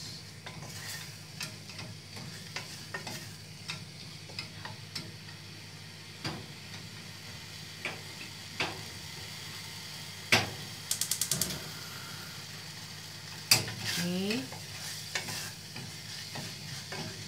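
Wooden spatula stirring and scraping spice paste thinned with chicken stock in a small stainless-steel saucepan over a gas flame, with a soft sizzle. Scattered knocks of the spatula on the pan, a sharp one about ten seconds in followed by a quick run of about six clicks, and another sharp knock about three seconds later.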